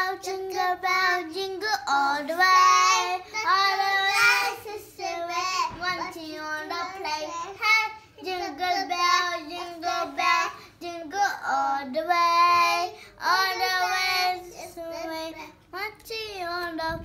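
A young child singing a song in a high voice, holding notes and stepping between them with short pauses for breath.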